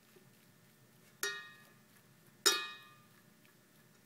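A metal fork clinks twice against the metal inner pot of a rice cooker while fluffing cooked brown rice. The second strike is louder, and each rings briefly.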